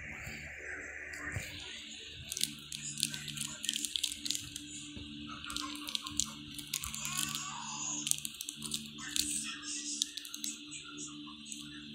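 Pokémon trading cards and their shiny plastic wrapping handled close to the microphone: irregular crinkling and clicking, busiest from about two seconds in, over a steady low hum.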